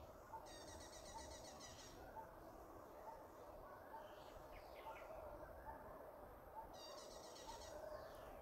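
Faint outdoor background of birds and insects: a soft chirp repeating about once a second over a steady insect hum. A buzzy high trill sounds twice, near the start and near the end, with a few short bird calls between.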